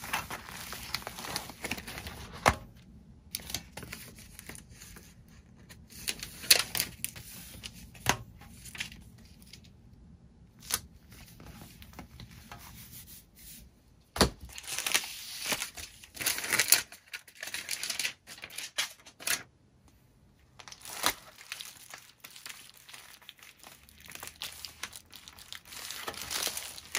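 Packaging being handled: bouts of crinkling and tearing, broken by a few sharp taps and short pauses.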